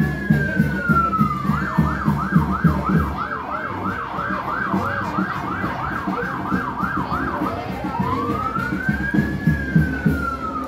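Electronic vehicle siren: a slow wail falling, then a fast yelp warbling up and down about three times a second for some six seconds, then a slow wail rising and falling again near the end. A steady low beat runs underneath.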